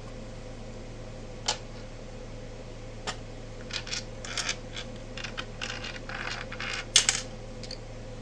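Hard clicks, clacks and short scraping rattles of metal parts as an opened HP test instrument's case and cover are handled. The sharpest clack comes about seven seconds in, after a run of rattling.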